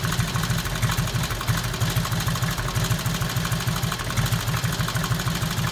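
Motorcycle engine idling steadily with a rapid, even low pulse.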